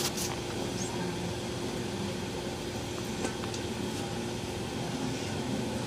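Automatic pancake machine running while it cooks a pancake: a steady motor-and-fan hum with a faint steady tone, and a couple of light clicks about three seconds in.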